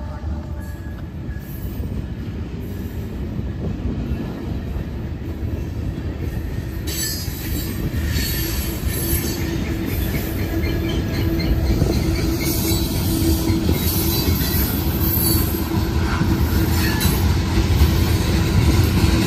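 Freight cars of a CSX train rolling past at close range: a steady rumble and clatter of steel wheels on the rails, growing louder, joined about nine seconds in by a steady wheel squeal.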